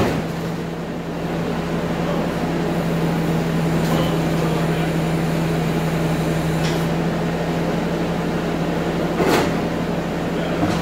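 Bobcat compact track loader's diesel engine running steadily while it lifts a pickup bed off the truck on chains. A few knocks of metal come through, the loudest about nine seconds in.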